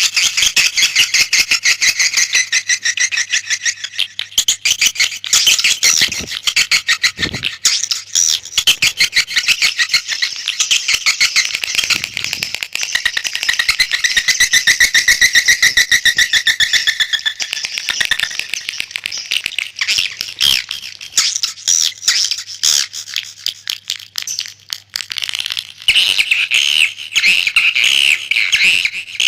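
Edible-nest swiftlets' calls played as a lure recording for a swiftlet house: a dense, rapid, many-voiced chirping and twittering. It thins out somewhat after the middle and fills in again near the end.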